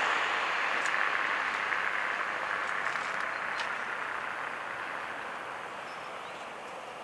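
Road traffic noise: the tyre and road hiss of a passing vehicle, loudest at first and fading away steadily as it recedes.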